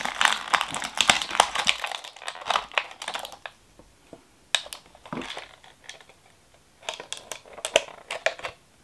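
Thin clear plastic packaging crinkling and crackling as fingers pull it open to get small plastic charms out. The crackling is dense for the first three and a half seconds, then turns to scattered clicks and crinkles.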